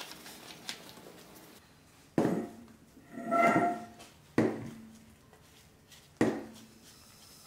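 Bernzomatic propane torch being handled and readied to light: three sharp clicks about two seconds apart, each trailing off briefly, and a short whistling tone about three seconds in.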